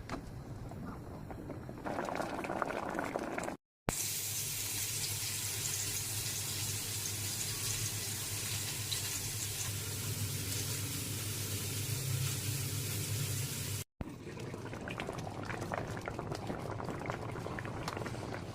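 Adobo bubbling and simmering in a cooking pot, a steady crackling bubble broken by two brief silent cuts. A steady low hum runs under the middle stretch.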